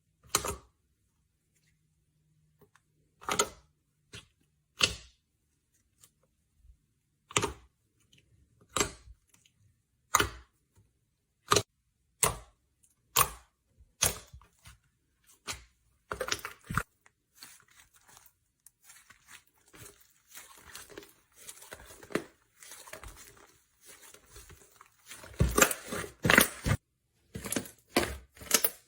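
Slime being pressed and poked by hand, giving sharp separate pops about once every second or so, then turning into denser crackling with a louder burst of crackles near the end.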